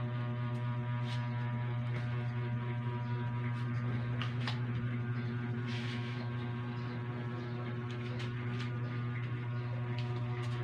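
Steady low electrical hum with a ladder of even overtones, with a few faint clicks on top.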